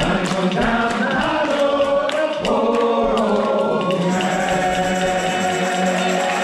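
Sea chanty sung by a group of voices, led by one singer, with steady hand-clapping in time. About four seconds in, the clapping stops and the voices hold a long chord.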